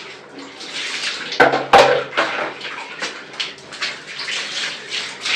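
Water poured from a plastic mug over a puppy, splashing onto a tiled floor in repeated uneven pours and splashes, with two sharp knocks about a second and a half in.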